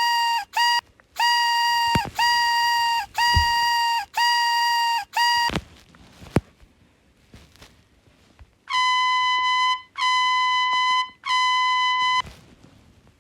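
Party horn sound effect from a prank app, tapped over and over. First comes a run of short, buzzy horn blasts on one steady pitch. After a pause of about three seconds come four longer, brighter blasts.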